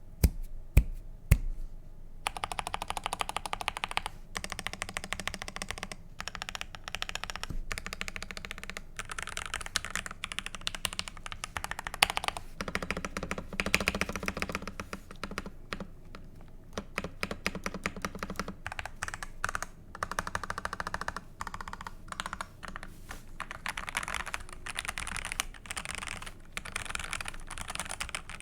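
Continuous fast typing on a Tester 68 mechanical keyboard with Gateron Pro linear switches, tape-modded and with tuned stabilizers. A few single key presses open it, dense typing runs from about two seconds in with short pauses, and there is one louder strike around twelve seconds.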